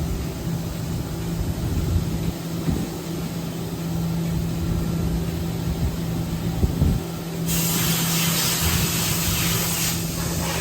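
Haas VF-2SS CNC vertical mill running with a steady hum and some low knocks. About seven seconds in, a loud spraying hiss starts up and keeps going.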